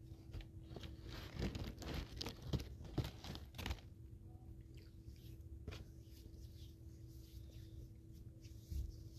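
Paper food wrapper crinkling and tearing as a breakfast sandwich is pulled apart by hand. The rustling is densest in the first few seconds, then thins to a few scattered crackles.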